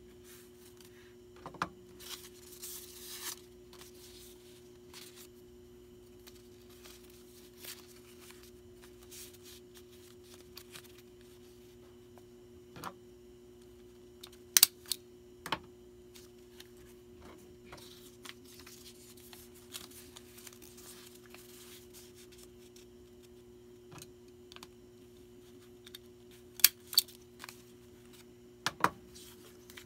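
Small items and packaging being handled at a table while packing orders: scattered light clicks and taps, with a short rustle about two seconds in and a few sharper knocks near the middle and end, over a steady low hum.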